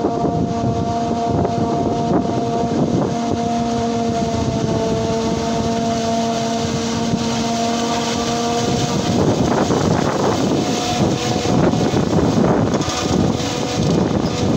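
Self-propelled forage harvester chopping standing maize, with the tractor pulling the forage trailer running alongside. A steady high whine runs through the first two-thirds, then turns into a louder, rougher noise as the machines come close.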